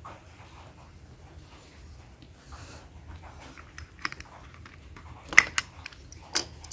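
Faint scratching of a crayon on paper, then a few sharp clicks and knocks as crayons are handled at the plastic crayon box, the loudest about five and a half seconds in and another near the end.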